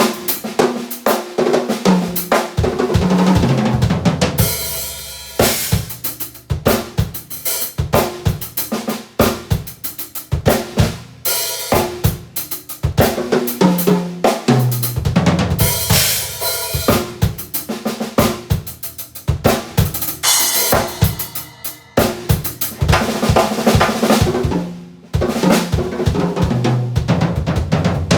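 Drum kit played hard and continuously: kick, snare and hi-hat grooves with cymbal crashes, broken by tom fills that step down in pitch.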